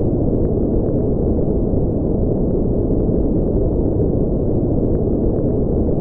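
Deep, steady noise with its weight in the low end and nothing bright on top: brown-noise-style spaceship engine ambience.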